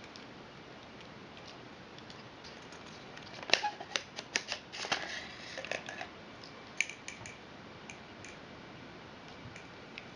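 Metal parts of a lightsaber hilt clicking and scraping against each other as it is handled and its inner chassis is slid out of the outer tube: a quick run of sharp clicks a few seconds in, the first the loudest, then a few scattered clicks later.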